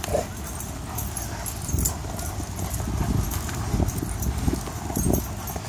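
Dogs playing on grass: a run of short, irregular thuds and scuffles over a steady low rumble.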